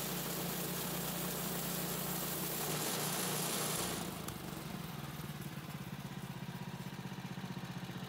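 Woodland Mills HM126 portable bandsaw mill running, its engine under load while the band blade cuts through an ash log, with a steady hiss of the cut over the engine. About four seconds in the hiss falls away, leaving the engine's even pulsing.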